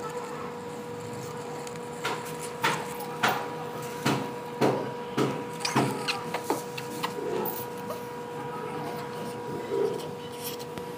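Hard plastic toy animal figures and fence pieces being set down and knocked against a concrete floor: a quick run of about ten sharp clicks and taps, then one more near the end, over a steady faint hum.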